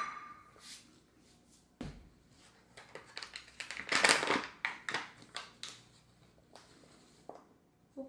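A stainless steel measuring cup clanks down on a wooden tabletop with a short metallic ring, and a dull thump follows about two seconds in. Then come a few seconds of crackling and hissing as the paper flour bag is handled and flour pours into the cup, and a couple of soft taps near the end.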